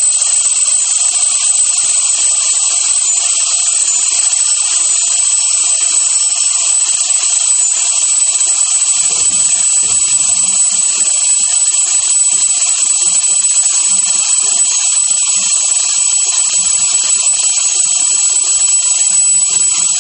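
Cold nitrogen vapour hissing steadily out of the telescope detector dewar's vent while it is filled with liquid nitrogen from a storage dewar. Vapour escaping shows that the dewar is not yet full; once it is full, liquid nitrogen drips from the vent.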